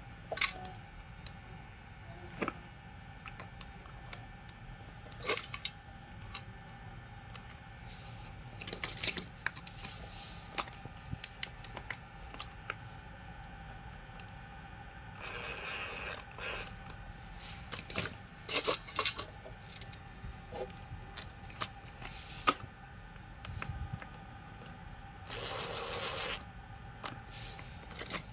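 Small metal parts and hand tools handled on a workbench: scattered clicks, light knocks and scrapes, with two short stretches of rubbing noise, about halfway and near the end.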